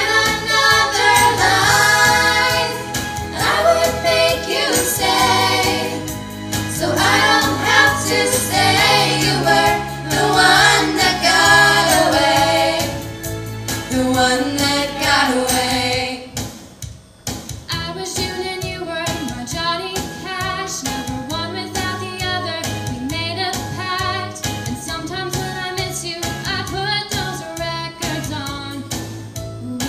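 Group of teenage girls singing a pop song together into microphones, several voices at once, over steady low accompaniment. The music drops briefly about halfway through, then a more rhythmic section begins.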